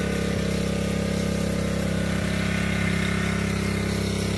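Small engine of an orchard power sprayer running steadily at an even speed, driving the spray pump.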